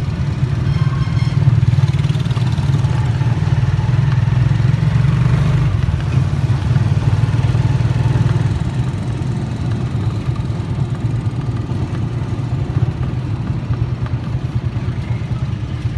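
Motorcycle engine running steadily under way, heard from its sidecar, a loud low hum with road noise.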